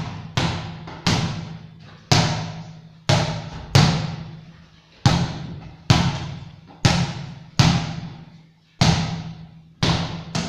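A rubber ball bounced repeatedly on a hard tiled floor: about a dozen sharp bounces at uneven intervals, each ringing briefly with a low hum before dying away.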